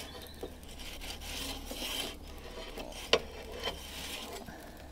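Perforated metal pizza peel scraping across the oven's baking stone as it is worked under a sticky, high-hydration dough that will not turn, with a sharp clack about three seconds in.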